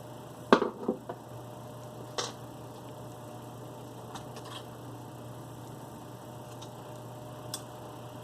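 Sharp clicks and light knocks from handling parts and tools on a VCR mechanism: a quick cluster about half a second in, another click about two seconds in, then a few faint ticks. A steady low hum runs underneath.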